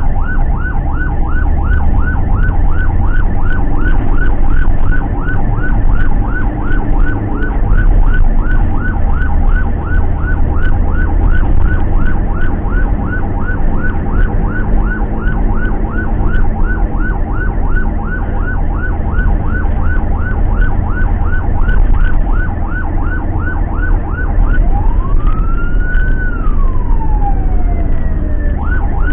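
Ambulance's electronic siren on a rapid yelp, about three rising chirps a second, heard from inside the cab over the van's engine and road rumble. Near the end it switches to one slow wail that rises and falls.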